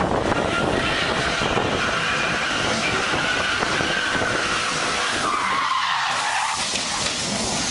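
Car tyres squealing as the car spins its wheels in a smoky burnout. A steady squeal drops in pitch and fades about five to six seconds in.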